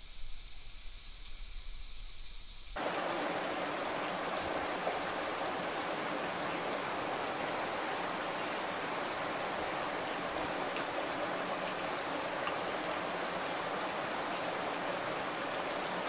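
Steady, even rush of running water that cuts in abruptly about three seconds in, after a quieter stretch with a low hum.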